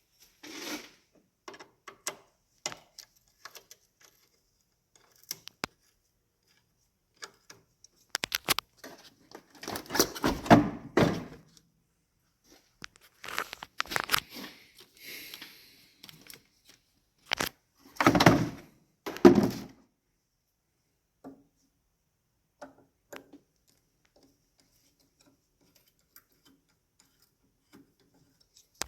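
Scattered clunks, clinks and rattles of hand tools and engine parts being handled during disassembly work in a car's engine bay, in a few bunches of knocks with quiet stretches between them.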